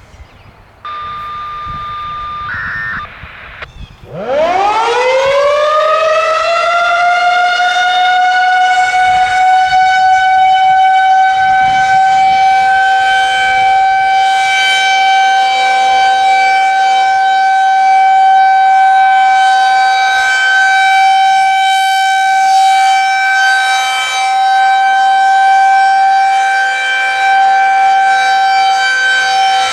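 Federal Signal 2001-130 rotating outdoor warning siren winding up: about four seconds in its pitch climbs quickly and then holds a loud, steady wail. A short steady electronic tone and a brief stuttering beep come before the wind-up.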